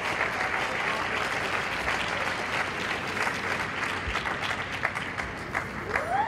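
Audience applauding: a dense, steady patter of hand claps.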